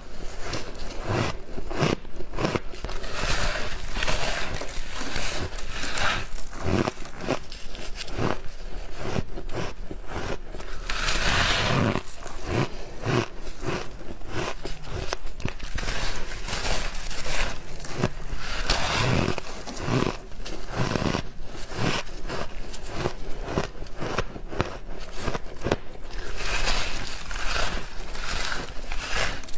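Close-up chewing and crunching of refrozen shaved ice, a dense run of crisp crunches that goes on without a break.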